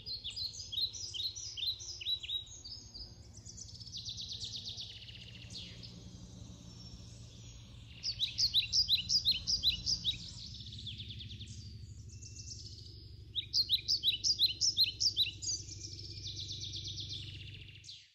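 Songbirds singing outdoors: loud series of rapid, repeated high chirping notes in several bursts, with softer trills between them, over a low steady background hum. The sound cuts off suddenly near the end.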